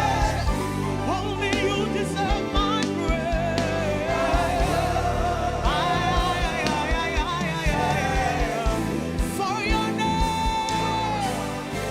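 Gospel worship music: a band playing a slow, steady beat with wavering, wordless singing over it.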